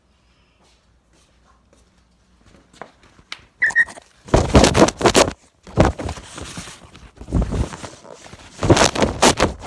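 Loud, irregular rubbing and handling noise right on a phone's microphone, in bursts about a second long starting a few seconds in, as spattered engine oil is wiped off the phone.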